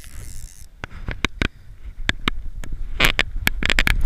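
Handling noise on a body-worn action camera: irregular clicks and knocks from clothing and gear brushing against the camera over a low rumble, getting denser and louder about three seconds in.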